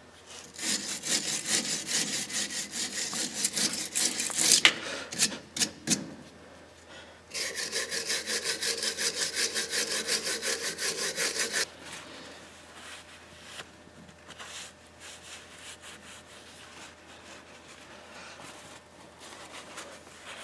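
Hand wire brush scrubbing rust off a truck's steering arm where the drag link taper seats, in rapid back-and-forth strokes. There is a run of about four seconds, a few sharp clicks, then a second steady run of about four strokes a second, followed by much quieter rubbing and light knocks.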